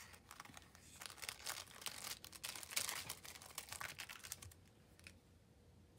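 Clear plastic packaging bag crinkling and crackling as it is handled and scrunched up, dying down about four and a half seconds in.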